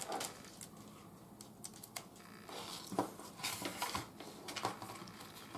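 Scattered light plastic clicks and handling noise as a USB cable is plugged into a small plastic block charger.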